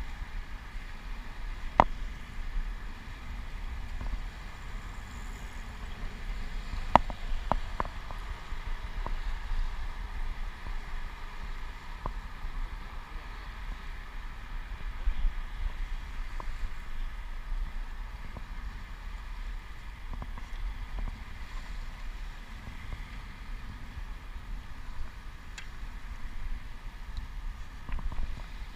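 Wind rushing over the microphone and a low rumble while riding a bicycle on pavement, with a few sharp clicks, the loudest about two and seven seconds in.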